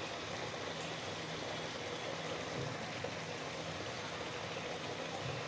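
Mutton curry simmering in a wok on a gas stove, a steady, even bubbling noise.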